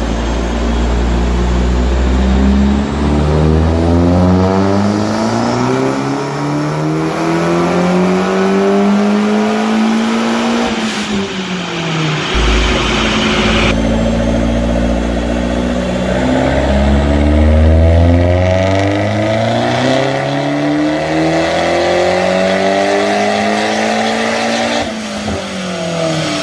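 Turbocharged 2.0-litre four-cylinder engine of a Hyundai Genesis Coupe with a Tomei MX7960 big turbo, making two full-throttle dyno pulls. Each time the pitch climbs steadily for about eight seconds, then falls away as the throttle is lifted, near the middle and again near the end.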